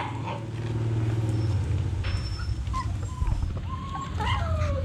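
Phú Quốc puppies, about 20 days old, whimpering in short thin squeaks that come more often in the second half, over a low steady hum.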